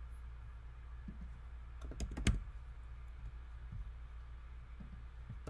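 A few faint clicks of computer keys about two seconds in, with another near the end, over a steady low hum.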